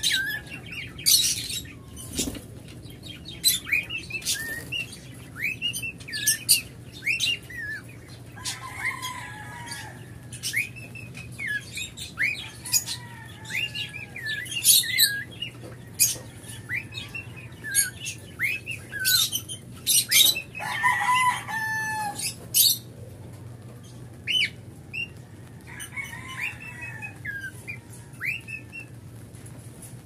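A cockatiel whistling and chirping its song: many short whistles that rise and fall, mixed with sharp high chirps, and a buzzy rapid run about two-thirds of the way through. The song is not yet perfected and still being practised.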